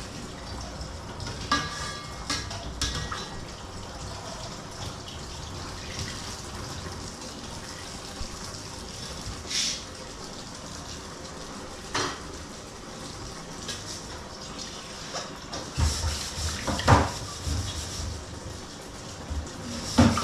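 Water being poured and splashed in a kitchen, with scattered clinks and knocks of pots and dishes, the loudest knocks near the end.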